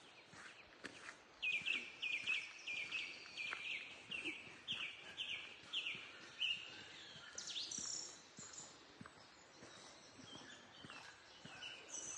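Wild birds calling: a run of short, repeated chirps, about two a second for some five seconds, followed by higher, thinner notes and scattered calls.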